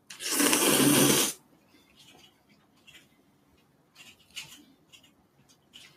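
A loud slurp of noodles into the microphone, lasting about a second, followed by faint clicks of eating.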